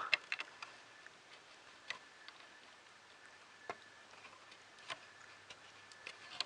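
Faint, irregular light clicks and taps from a small motor driver board being handled and pressed onto its header pins, about half a dozen sharp ticks spread across a few seconds over a low steady hum.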